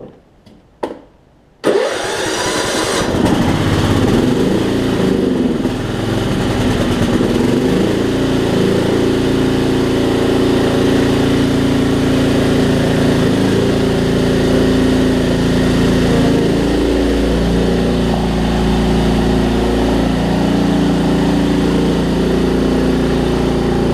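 A few light clicks, then about two seconds in the Craftsman LT1750 riding mower's engine cranks and starts, and settles into steady running.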